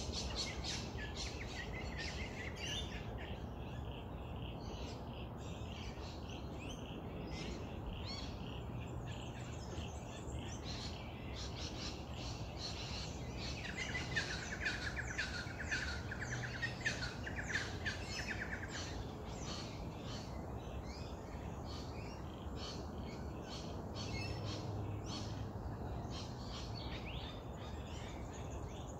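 Birds chirping and calling in bushland, with quick high chirps throughout and a trilling call from about halfway in for some five seconds, over a steady low background noise.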